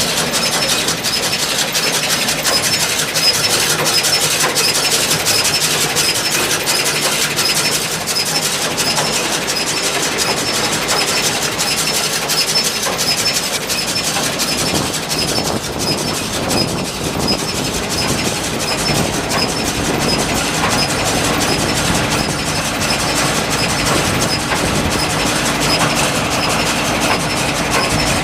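Case IH 8575 large square baler running empty on tractor PTO power, a steady mechanical clatter with a fast, even ticking over the tractor engine running.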